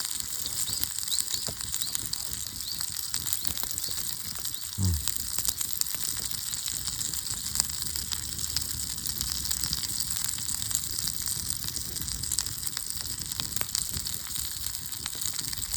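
Steak sizzling in a pan over a campfire: a steady frying hiss thick with fine crackles. A short low vocal sound, falling in pitch, about five seconds in.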